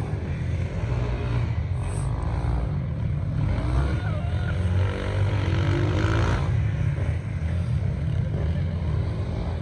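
Motorcycle engines revving and accelerating as riders make practice runs, the engine pitch rising several times in the middle of the stretch, over a steady low rumble.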